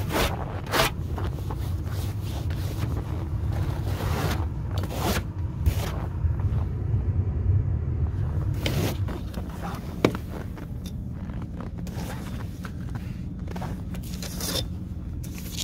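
Snow brush sweeping snow off a car's windscreen and bodywork: a series of separate scraping strokes over a steady low rumble that eases about nine seconds in.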